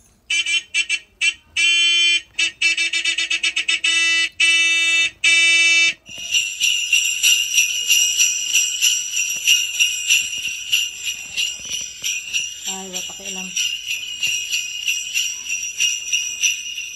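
A run of electronic beeping tones, short and longer beeps over about six seconds, then jingle bells shaking steadily for the rest of the time.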